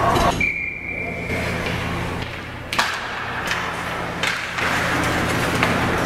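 Ice hockey arena: a steady high tone sounds for about two seconds, starting about half a second in. After it come several sharp cracks of sticks and puck on ice and boards, over the low steady hum of the rink.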